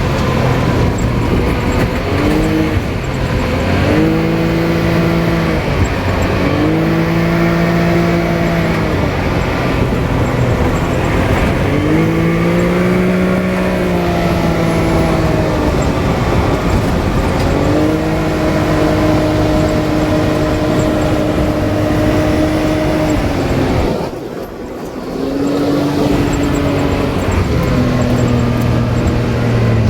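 Can-Am Maverick X3 side-by-side's turbocharged three-cylinder engine pulling off-road. Its pitch climbs, holds steady for a few seconds and drops as the throttle is eased, several times over. There is a short lull about 24 seconds in, over a steady rushing noise.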